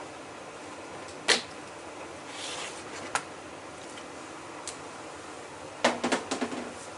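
Handling clicks and knocks from the parts of a Miele W1 washing machine's TwinDos compartment: a sharp click about a second in, another near three seconds, and a quick rattle of several knocks near the end.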